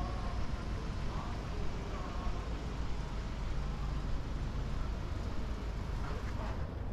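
Busy city street ambience: steady rumble of passing traffic, with faint voices of passers-by.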